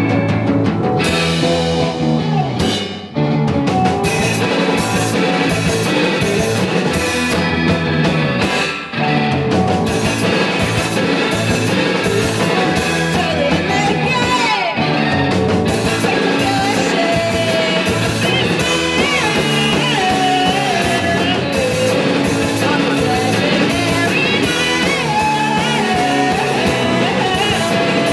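Rock band playing live on two electric guitars, electric bass and a Gretsch drum kit. The music drops out briefly twice, about three seconds in and again around nine seconds.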